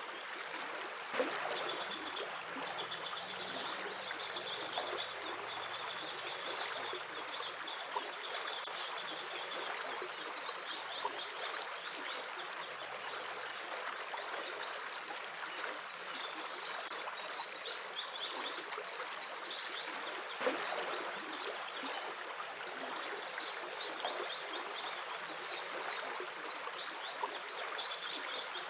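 A stream flowing steadily, with many small birds chirping constantly over it. A few sharp clicks stand out briefly.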